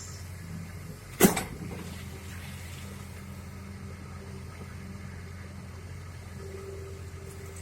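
Hydraulic excavator's diesel engine running steadily as it digs mud and sand, with one sharp knock about a second in.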